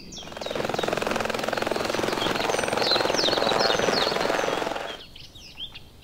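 Fast chopping whir like a helicopter's rotor. It swells in at the start and dies away about five seconds in, with birds chirping over it.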